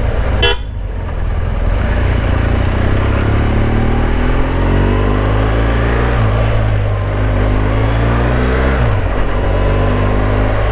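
BMW R1200GS boxer-twin engine running as the motorcycle rides along, its note climbing steadily from about four seconds in as the bike accelerates, then falling back about nine seconds in, over road and wind noise.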